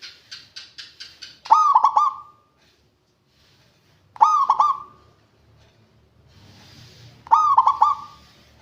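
Zebra dove (perkutut) song: a run of short quick notes, then three loud, rapid, bubbling cooing phrases, each under a second long and about three seconds apart. It is a lure call for getting a quiet perkutut to sing.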